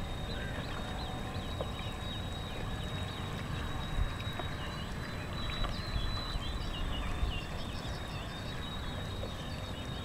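Outdoor pond ambience: a low, uneven wind rumble on the microphone, with faint chirping bird calls and a faint steady high whine.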